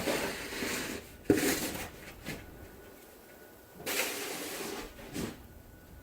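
Crunching, scraping sounds in snow: several irregular strokes, the longer ones lasting about a second, with short scuffs between them.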